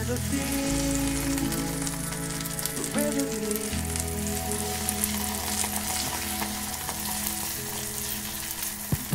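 Vegetable pancake batter sizzling in a hot frying pan as a spoon spreads it out.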